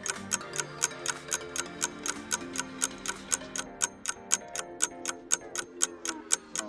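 Countdown-timer clock ticking sound effect, about four ticks a second, over soft sustained background music; a falling tone comes in at the very end.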